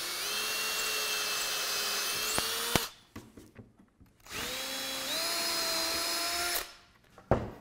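Cordless drill with an eighth-inch bit pre-drilling pilot holes through plywood into MDF: it runs about three seconds, stops, then runs again for about two seconds, its whine stepping up in pitch partway through the second hole. A sharp click near the end.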